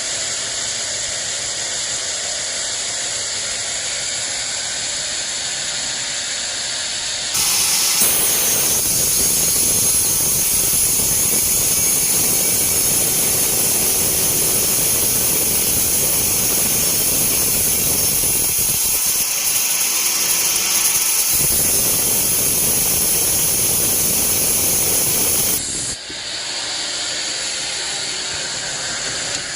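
Sawmill band saw running free, then cutting through a teak log from about seven seconds in. The sound gets much louder and noisier for some eighteen seconds, then drops back to the saw running free near the end.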